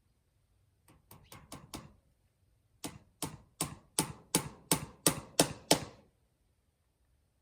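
Hammer driving a nail: a few quick light taps to start it, then about nine heavy, evenly spaced blows that grow louder as the nail is driven home.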